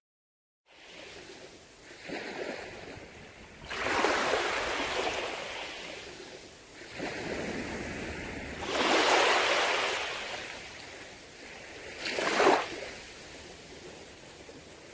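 Ocean waves breaking and washing up on a shore, rising and falling in several surges, after a brief silence at the start.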